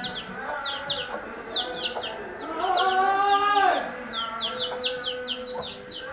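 A rooster crows once, starting about two and a half seconds in and lasting about a second; it is the loudest sound here. Small birds chirp throughout with rapid, high, down-sliding notes.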